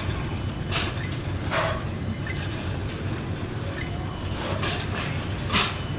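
Sushi restaurant ambience: a steady low rumble with four short clatters spread through it.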